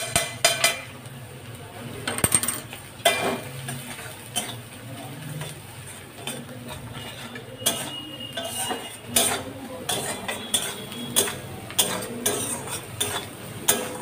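Metal spatula scraping and clinking against a metal kadai as chopped onion, capsicum and spring onion are stirred in hot oil and ghee, in irregular strokes.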